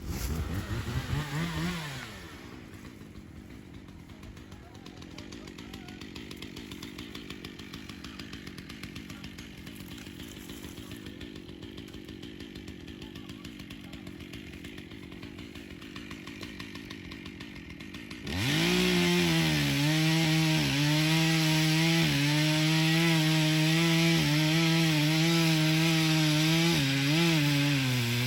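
Chainsaw revving briefly, then idling quietly. About eighteen seconds in it opens to full throttle and runs loud into the cut in an ash trunk, its pitch dipping now and then as the chain loads up in the wood.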